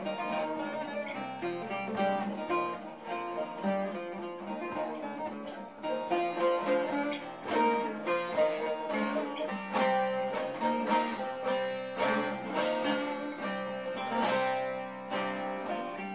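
Three bağlamas (long-necked Turkish saz lutes) played together in an instrumental passage with no singing: quick plucked and strummed notes over a steady drone of open strings, getting louder and busier about six seconds in.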